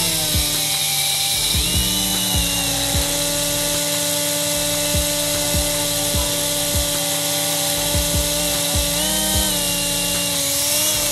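Tiny RC helicopter's electric motors and coaxial rotors whirring with a steady high whine. The pitch rises briefly about a second and a half in, and again about nine seconds in.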